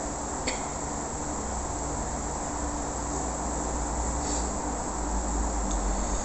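Steady background hiss with a faint low hum, and a soft click about half a second in.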